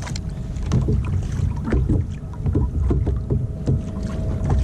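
Wind buffeting the microphone and choppy water slapping a plastic kayak hull: a steady low rumble with irregular small knocks and clicks.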